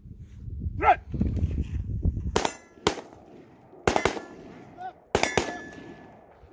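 AR-15 rifle shots fired in three quick pairs, the steel targets ringing after the hits.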